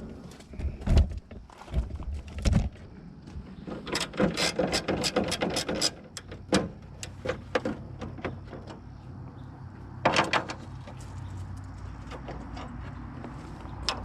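Ratchet wrench clicking in quick runs as rusted hood latch bolts are worked loose, with a few knocks of metal on metal.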